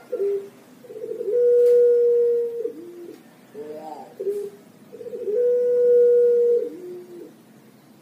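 Puter pelung, a Javanese barbary dove, cooing twice: each call opens with a few short stuttering notes, holds one long steady coo, then drops to a lower closing note.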